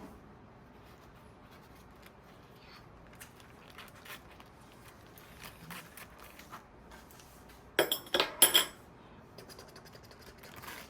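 Metal utensils clinking against dishes. There are scattered light clicks, then a louder run of ringing clinks about eight seconds in.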